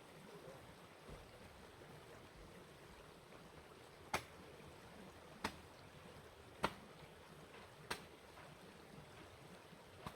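Four sharp clicks or knocks, evenly spaced about a second and a quarter apart, with a weaker fifth near the end, over a faint steady hiss.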